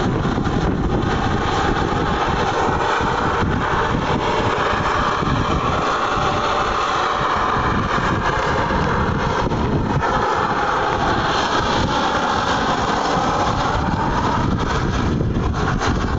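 Large radio-controlled model Mi-24 Hind helicopter in flight, its motor whine and rotor noise steady and loud, swelling and dipping in pitch as it manoeuvres.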